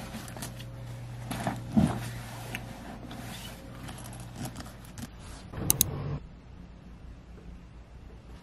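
Backpack being unpacked onto a desk: fabric rustling and items knocking and clinking, with a heavier thump about two seconds in and two sharp clicks a little after halfway, over a steady low hum that stops soon after.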